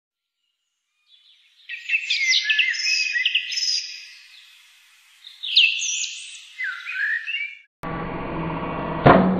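A songbird singing a run of quick chirps and whistled phrases. Near the end the song cuts off and the AL-KO log splitter's 2200 W electric motor is heard running with a steady hum, with a sharp crack about a second later.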